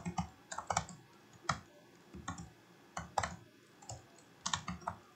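Typing on a computer keyboard: irregular runs of quick keystroke clicks with short pauses between them.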